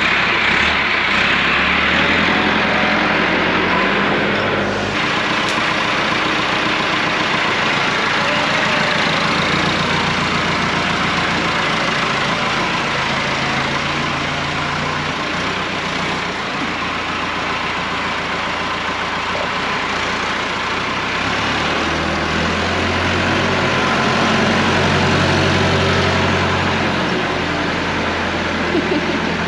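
Farm tractor's diesel engine running while handling a bale, its pitch shifting as the load changes and growing louder for a few seconds near the end.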